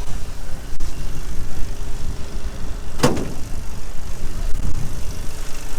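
A vehicle engine running steadily with a low rumble. A single sharp knock comes about three seconds in.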